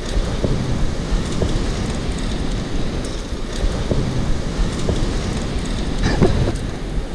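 Surf breaking and washing over a rocky shore, with wind buffeting the microphone.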